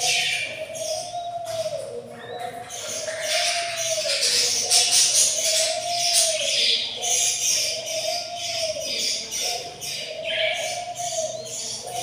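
Background music: a short melodic figure looping about every second and a half over a steady tambourine-like shaking beat.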